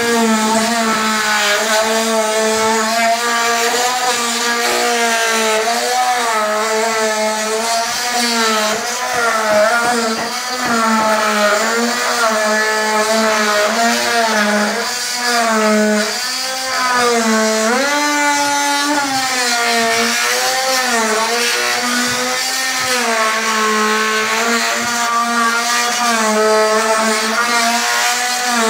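Corded handheld power tool cutting drywall along the top of a countertop, running continuously with a steady whine whose pitch wavers up and down as the blade is pushed into and eased off the board.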